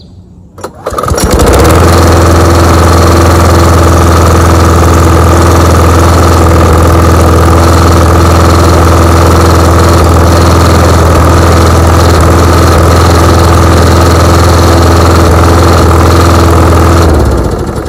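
John Deere JS20 push mower's small four-stroke engine being started. It catches about a second in, runs steadily at one even speed, then is shut off and winds down near the end. The engine is a little worn out, which the owner says makes it sound rough, though it still runs fine.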